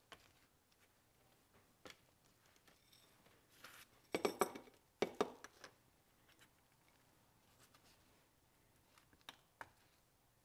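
Quiet handling sounds of gloved hands moving small objects and a glass dish on a table: scattered light clicks and taps, with a short cluster of clinks and rustles about four to five seconds in.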